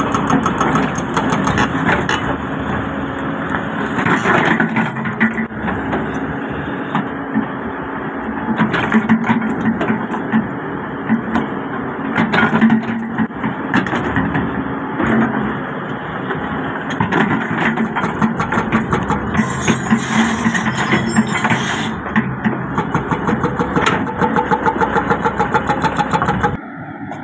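Doosan 220-class crawler excavator's diesel engine running steadily under load while its bucket digs and scrapes in broken rock, with repeated irregular knocks and clatter of stones against the steel bucket.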